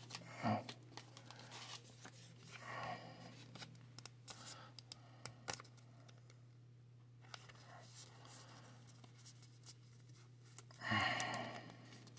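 Faint rustling and crinkling of a plastic card sleeve as a trading card is slid into it, in scattered small handling noises over a steady low hum, with a louder burst of rustle or voice near the end.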